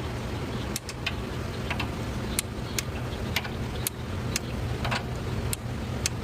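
A steady low mechanical hum, with sharp clicks and taps at irregular intervals, roughly one or two a second.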